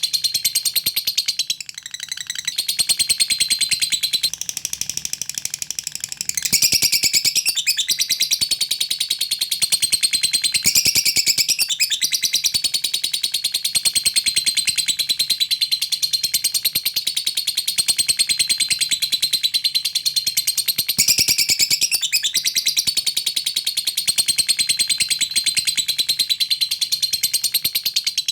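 Lovebird giving a long ngekek: a fast, almost unbroken chatter of high ticking notes, with a short break about two seconds in.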